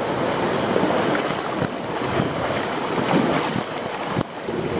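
River rapids: fast water rushing and splashing around a kayak being paddled through a low rapid, with wind buffeting the microphone. The sound dips suddenly for a moment about four seconds in.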